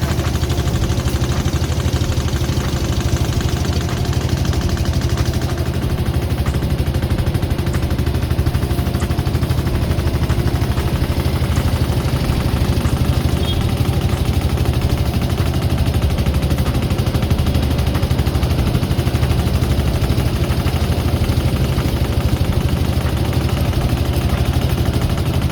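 Engine running steadily at close range, a loud even rumble without changes in speed.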